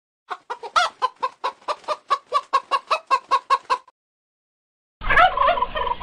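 A hen clucking in a quick run of short clucks, about four a second, for three and a half seconds. After a short pause, a turkey gobbles once, about a second long, near the end.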